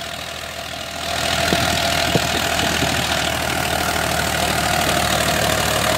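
Farmtrac 45 tractor's diesel engine running steadily under heavy load as it drags a loaded sugarcane trolley through wet, muddy ground. It grows louder about a second in as the tractor pulls.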